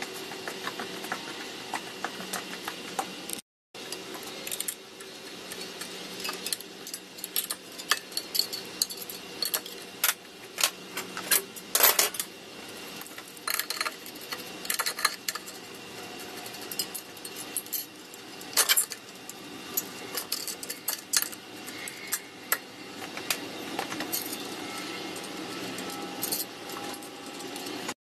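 Irregular light metallic clinks, taps and rattles of small steel parts being handled during a Ford C6 automatic transmission rebuild. The sound cuts out completely for a moment about three and a half seconds in.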